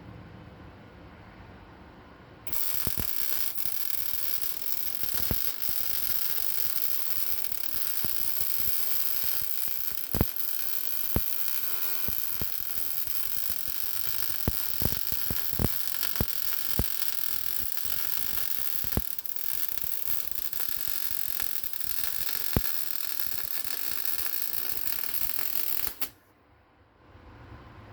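Wire-feed welder running a continuous bead on a steel cross member: a steady crackling hiss with sharp pops of spatter. It starts about two and a half seconds in and cuts off suddenly near the end.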